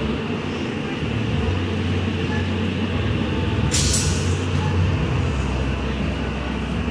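Heavy vehicle engine running steadily in street traffic, with a short hiss a little past halfway.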